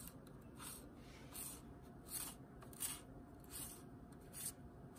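Faint, short scraping rubs, about six in a row, as a metal retaining piece is worked into place on the clutch hub of a DCT470 dual-clutch transmission.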